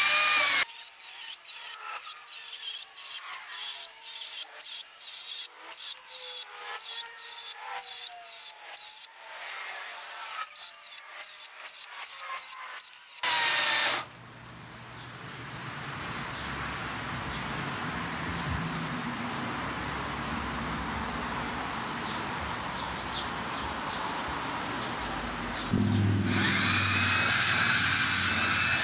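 Makita 40V XGT top-handle chainsaw cutting through a square wooden post. Short, irregular bursts come first, then a long steady run through the wood. Near the end a cordless blower starts up with a rising whine.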